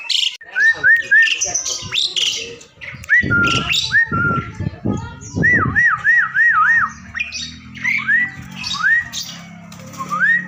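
Asian pied starling (jalak suren) calling: short rising whistles repeated over and over, some in quick runs of three to five, mixed with harsh chattering squawks.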